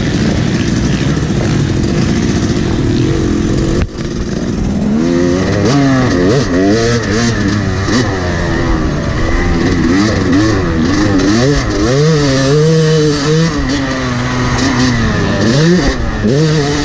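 Yamaha YZ dirt bike engine being ridden: steady running for the first few seconds, a brief drop in level near four seconds, then the pitch rising and falling again and again as the rider opens the throttle and shifts through the gears.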